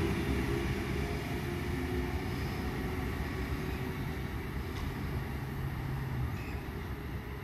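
Four-car V-set double-deck intercity electric train pulling away and running off into the distance. Its wheel rumble and motor hum fade, mostly over the first second, and there is a faint click about five seconds in.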